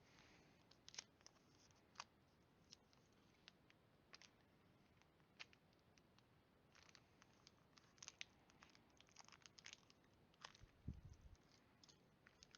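Faint crinkling and scattered clicks of a foil Pokémon booster pack being opened and its cards handled, with a soft thump near the end.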